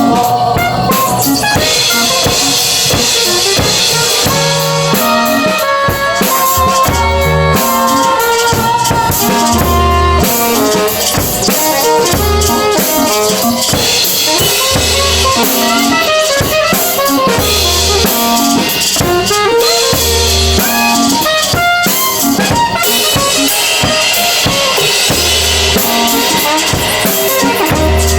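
Live band playing an improvised piece, a drum kit keeping a steady beat under repeating low bass notes and other instruments.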